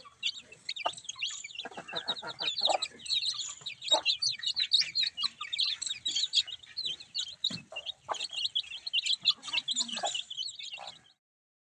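A brood of chicks peeping constantly in many short, high, overlapping cheeps, with the mother hen's lower clucks now and then. The sound cuts off suddenly near the end.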